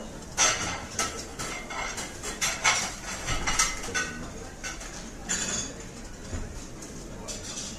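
Cutlery and dishes clinking and scraping in a run of irregular knocks, some close together, some spread out.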